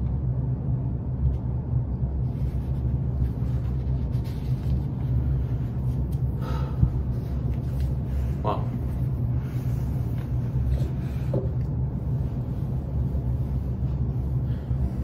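Steady low hum of room background noise, with a couple of faint, brief sounds near the middle.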